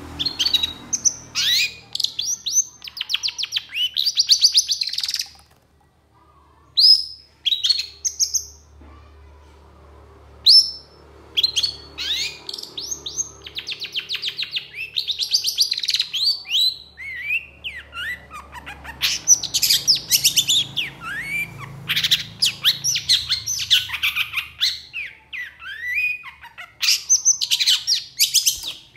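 Caged long-tailed shrike (cendet) singing hard: bursts of fast, high, chattering notes and rapid trills, with a short pause about six seconds in.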